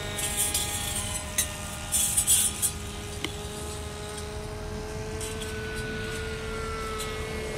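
Radio-controlled model P-51 Mustang's motor running with a steady, multi-toned note whose pitch slowly sinks as the plane comes in to land with its wheels down. Several short loud crackles in the first three seconds are the loudest sounds.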